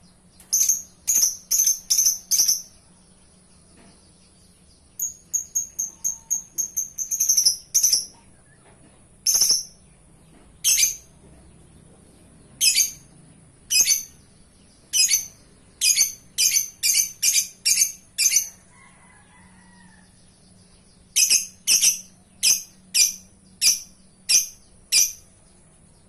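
Lovebird giving loud, sharp, high chirps in quick runs of five to nine, with short pauses between the runs. A steady high-pitched whine sits underneath.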